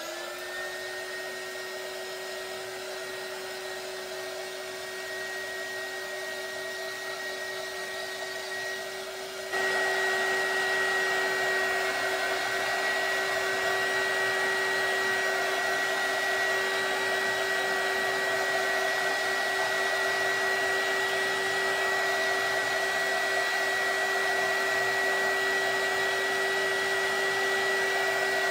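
Craft heat tool drying wet paint: its fan spins up at the start with a brief rising whine, then runs with a steady blowing hum and whine. It gets louder about ten seconds in and stays so.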